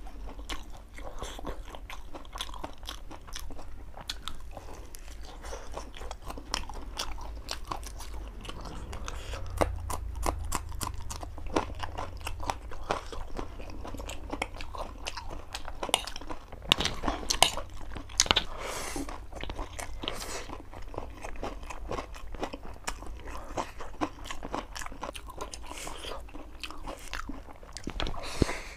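A man chewing and biting food close to the microphone, a chicken leg piece and then a forkful of noodles near the end, with a dense run of small wet clicks and smacks throughout and the loudest bites a little past halfway. A steady low hum sits underneath.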